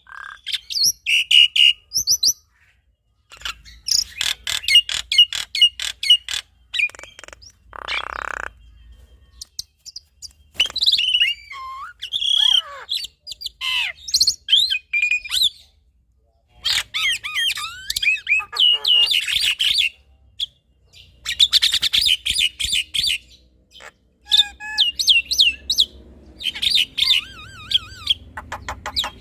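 Black-winged myna and Javan myna singing a loud, varied song of fast clicking rattles, chatter and gliding whistles, in phrases broken by brief pauses of about a second.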